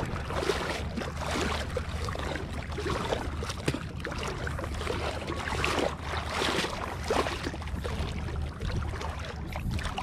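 Shallow seawater sloshing and splashing as a person wades through it, in irregular splashes over a steady low rumble.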